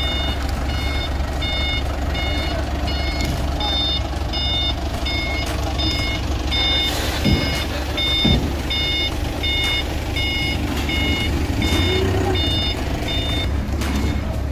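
Forklift's reversing alarm beeping about twice a second as it backs out of a shipping container with a load, over the steady run of its engine; the beeping stops near the end.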